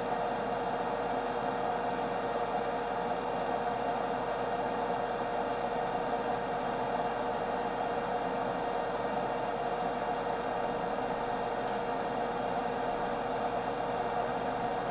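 Steady machine hum with one constant mid-pitched tone over an even hiss, unchanging throughout.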